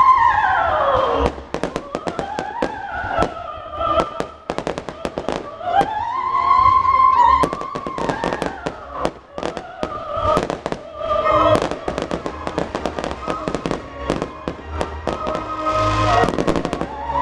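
Fireworks display: a rapid, uneven run of bangs and crackling bursts. Under them plays music with long held and gliding notes, one wavering.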